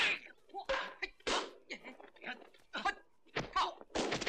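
Kung fu fight sound effects: a quick run of sharp whacks and blows, about five or six, mixed with short grunts and shouts from the fighters.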